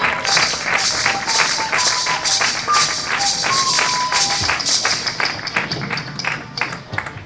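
Lively circus-style music: a melody of short, quick notes over a fast rattling percussion beat, dropping away near the end.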